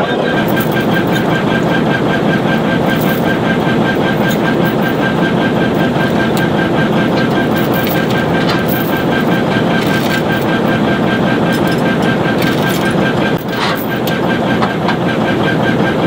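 A heavy diesel engine idling steadily, with a few sharp metallic clinks from steel tie-down chains being handled against the trailer.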